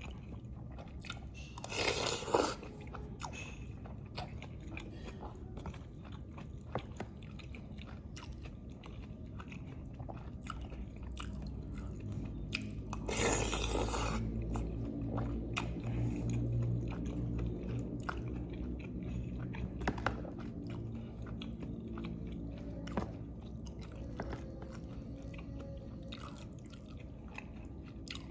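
Close-miked eating of lontong with green chilies: steady chewing with small wet clicks and bites, and two louder, harsher bursts about two seconds in and near the middle.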